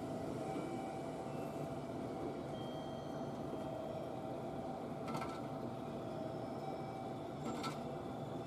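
A JR Kyushu 415 series 1500-number electric multiple unit pulls slowly into the platform, giving a steady running hum with a constant tone. Two short sharp clicks come about two and a half seconds apart in the second half.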